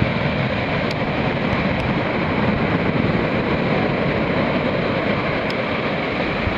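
Large shorebreak waves breaking and white water rushing up the beach: a steady, dense roar of surf that never lets up.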